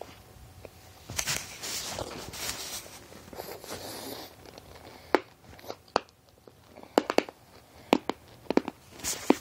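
A mouthful of sour Ice Breakers mints being chewed: a few seconds of noisy, breathy mouth sounds, then a run of short sharp crunches from about five seconds in.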